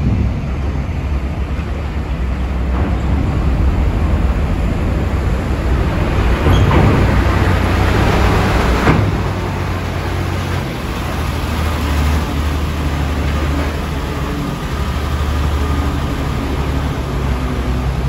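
Tanker truck's diesel engine running as the truck drives slowly up the ferry's steel loading ramp and onto the vehicle deck, a steady low rumble that grows louder as it passes close, about six to nine seconds in.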